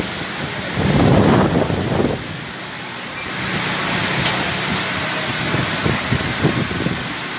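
Hurricane-force wind and heavy rain, the gusts rising and falling, with the wind buffeting the microphone; the strongest gust comes about a second in.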